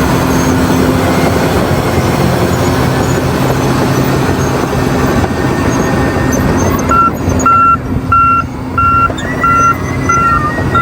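Heavy diesel earthmoving machine running steadily. From about two-thirds of the way in, a backup alarm beeps about twice a second.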